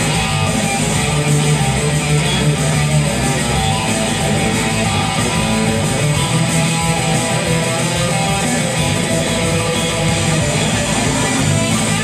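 Electric guitar playing a surf rock instrumental, a continuous stream of picked notes.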